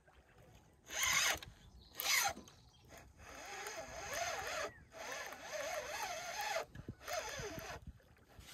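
Spinning reel at work on a hooked fish: two short zipping bursts about a second apart, followed by a softer, steady whirring run of the reel.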